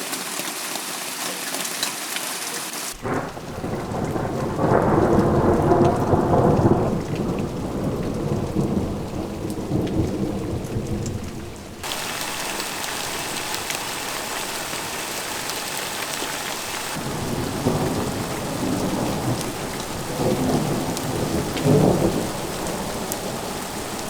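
Heavy rain falling steadily, with thunder rumbling: a long roll a few seconds in and another near the end.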